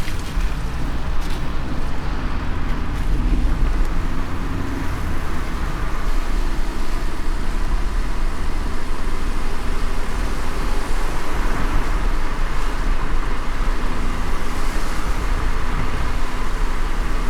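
Rain falling on a car while driving, a steady hiss over the low rumble of the moving car.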